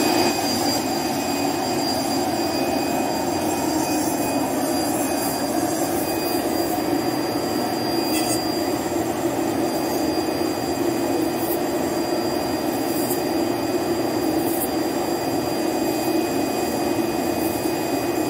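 A 1325 CNC cutting machine runs steadily while its router spindle cuts a PVC sheet: a continuous whirring roar with a thin high whine over it and a few faint ticks.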